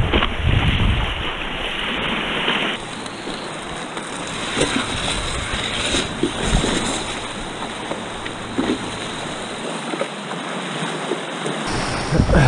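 Turbulent eddying current water rushing and churning around a stand-up paddleboard, with wind buffeting the microphone in the first second or so and a few brief splashes from paddle strokes.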